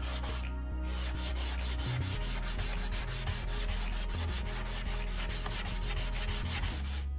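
Hand sanding with a coarse 60-grit sanding block, rubbed back and forth in quick strokes, several a second, over the edges of a painted wooden board. The board is wet with sealer, and the sanding wears through the chalk paint to distress it, with a short pause about half a second in.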